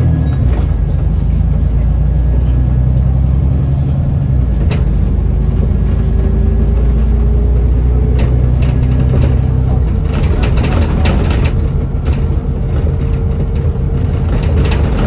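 London bus engine running on the move, with a faint whine that slowly rises in pitch from about five seconds in, and a cluster of clicks and rattles about ten seconds in.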